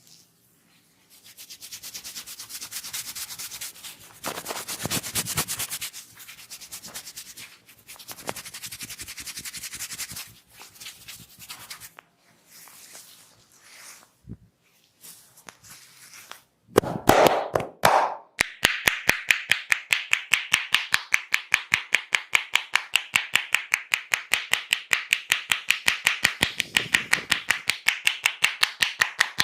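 Hands massaging a head: brisk rubbing over the hair and scalp in several spells, then a fast, even run of percussive hand taps and slaps at about five a second for the second half.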